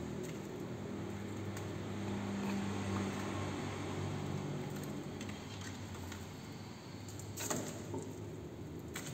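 Steady low mechanical hum, with a few light clicks and taps, the sharpest about seven and a half seconds in.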